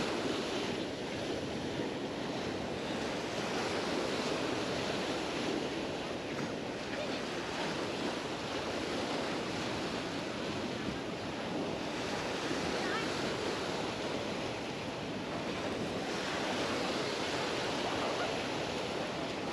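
Small Mediterranean waves washing onto a sandy beach, a steady wash that swells and eases every few seconds, with wind on the microphone.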